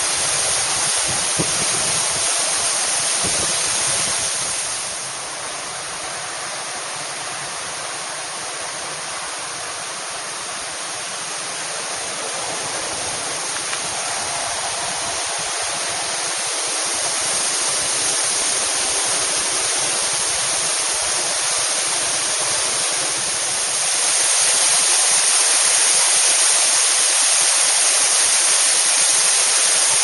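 Narrow cascade waterfall rushing steadily down rocks, a dense, even water noise. It drops in level about five seconds in, builds back gradually, and is loudest from about 24 seconds on.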